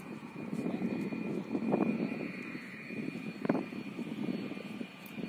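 Jet airliner engines running on approach to land, a steady rumble with a thin high whine held throughout, plus a few brief knocks.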